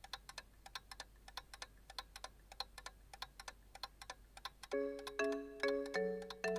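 A clock ticking faintly and steadily. About three-quarters of the way in, a Lava keypad mobile phone starts playing a louder chime-like tune of short repeated notes, like an alarm or ringtone.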